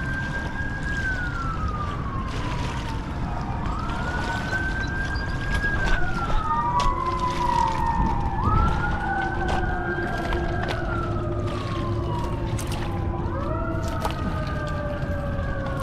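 Emergency vehicle siren wailing: each cycle rises quickly, holds, then falls slowly, repeating about every four to five seconds, with two wails at different pitches overlapping, over a steady low rush.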